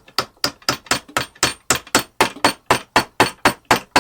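Hammer tapping an 8 mm dowel into its drilled hole in the stool's wooden frame, with quick, even sharp strikes at about four a second.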